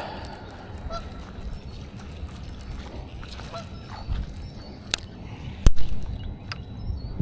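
Geese honking with short calls about a second in and again past three seconds, and a sharp click later on, the loudest sound here.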